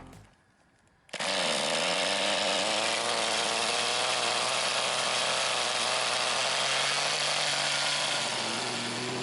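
Small glow-fuel engine of a Kyosho TGX Mk.1 RC car running steadily, with an even, buzzy note. It cuts in suddenly about a second in.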